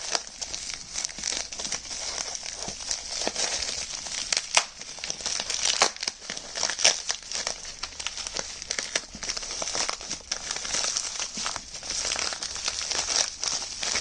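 Bubble wrap crinkling as it is unwrapped by hand, with many small sharp crackles.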